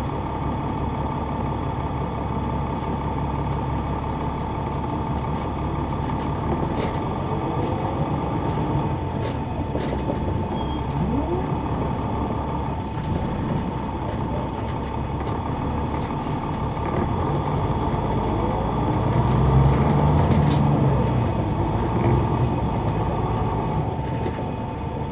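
Cabin of a 2004 Neoplan AN459 articulated transit bus heard from the rear seats, its Caterpillar C9 ACERT diesel engine running under way with a steady high whine over the engine hum and scattered rattles. The engine note swells louder for a few seconds about three-quarters of the way through.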